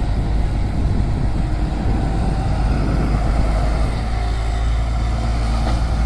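Diesel engine of a Tata Hitachi EX200LC crawler excavator running steadily while the machine digs soil, a dense low rumble.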